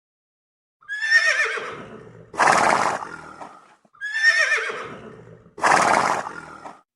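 Horse neighing: a wavering, quavering whinny followed by a louder, rougher blast, the same pair of calls heard twice.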